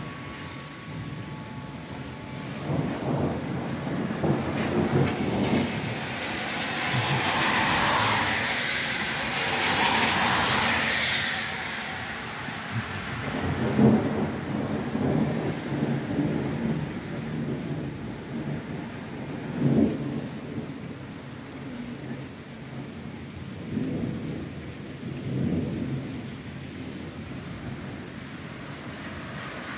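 Thunder rumbling again and again over steady rain, with a few sharper peaks of thunder and a louder rushing swell of hiss about a third of the way through.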